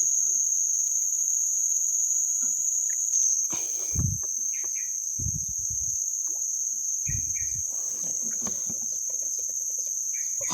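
Insects shrilling in a continuous, steady high-pitched drone, with a few short low thuds about four, five and seven seconds in.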